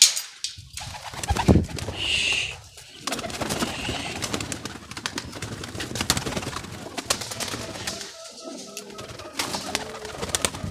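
Domestic pigeons cooing, with a wire-mesh pigeon cage rattling and knocking as it is handled, and wings flapping. The sharpest knocks come at the very start and about a second and a half in, and the cooing is clearest in the last few seconds.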